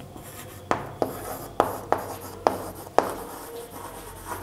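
Chalk writing on a chalkboard: a faint scratchy rubbing broken by four sharp taps as the chalk strikes the board.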